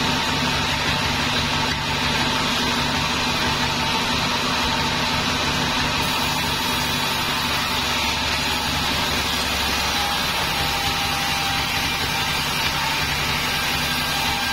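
Sawmill band saw running and ripping a hardwood plank: a steady machine drone and whine of the blade cutting through the wood, at an even level throughout.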